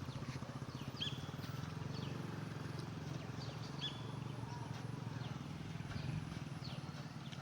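A small engine running steadily, with a bird repeatedly giving short high chirps over it.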